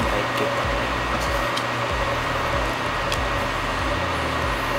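Steady mechanical whir and hum, with a few faint clicks.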